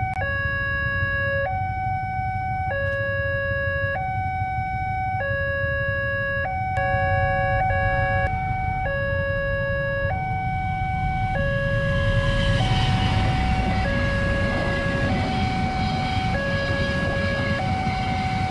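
Railway level-crossing alarm sounding its two-tone warning: a low and a high electronic tone alternating, each held for just over a second. From about twelve seconds in, the rumble of a passenger train passing over the crossing grows under the alarm.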